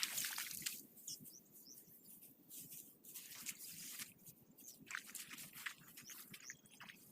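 Faint crunching and rustling in dry vegetation, loudest in the first second and then sparse. Now and then a bird gives a short high chirp in the background.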